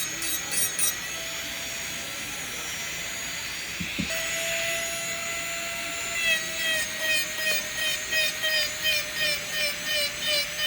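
Dental lab micromotor handpiece whining at a high, steady pitch while working the denture acrylic. There is a click about four seconds in and the whine grows louder; from about six seconds its pitch dips and recovers about three times a second as the bur is pressed against the work in short strokes.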